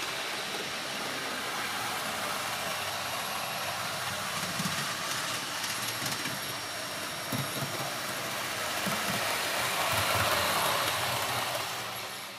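OO gauge model trains running on a layout: a steady rushing of wheels on track with a faint high motor whine and a few soft knocks. It grows louder about ten seconds in, as a train passes close.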